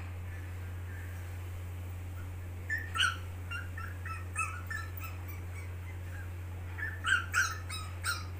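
A dog whimpering and yipping in short high-pitched cries, in two bunches about three and seven seconds in, over a steady low hum.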